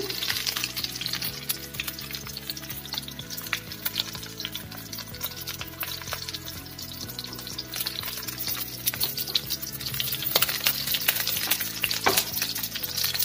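Spice-coated Indian mackerel shallow-frying in hot oil in a pan, a dense, continuous sizzling crackle with a few sharper pops towards the end.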